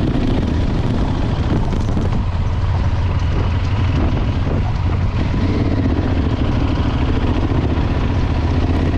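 Motorcycle engine running steadily while riding: a steady low hum under an even haze of wind and road noise.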